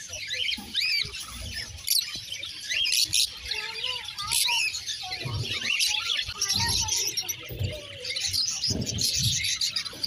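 Caged Fischer's lovebirds chirping, many quick high calls overlapping in a constant chatter.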